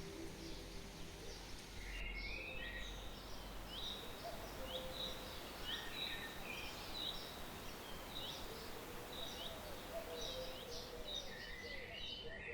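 Small birds chirping: short, high, hooked calls repeating several times a second from about two seconds in, with fainter, lower calls mixed in, over a steady outdoor hiss.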